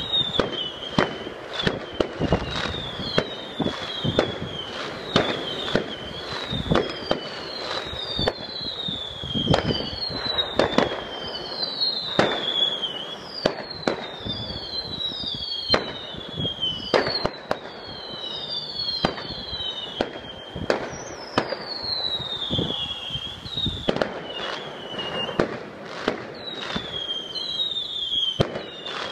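A fireworks display going off without a break: sharp bangs in quick succession mixed with many whistling fireworks, each whistle falling in pitch, about one a second.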